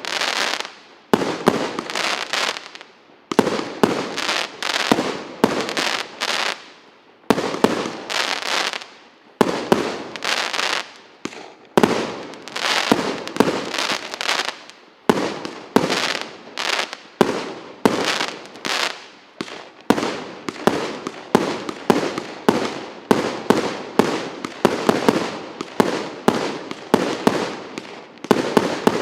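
Fireworks going off: a long run of sharp bangs, each trailing off, spaced about a second apart at first and coming faster, two to three a second, in the later part.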